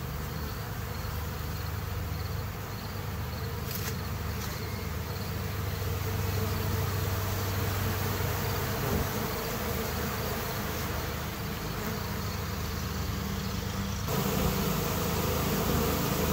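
Dense, steady buzzing of a large crowd of honeybees, with yellow jackets among them, robbing honey left on wet extracting equipment. The hum grows a little louder near the end.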